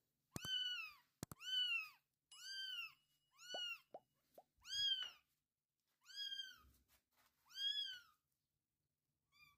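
Young tabby kitten meowing repeatedly: about seven high, thin meows, each rising then falling in pitch, spaced roughly a second apart.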